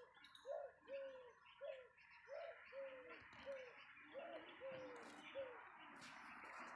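A dove cooing: a quick series of short, soft notes, each rising then falling, about two to three a second, that stop a little before the end. A faint steady hiss runs underneath.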